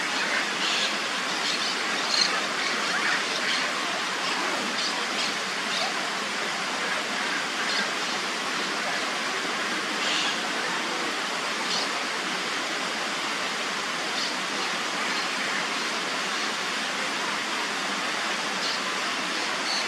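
Steady rushing of running water, with scattered brief high bird calls over it.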